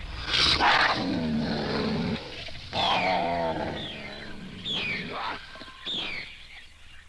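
Monster sound effects from a 1970s horror sound-effects record: deep, pitched growling roars in the first half, then a run of short, high shrieks that each fall in pitch, fading near the end.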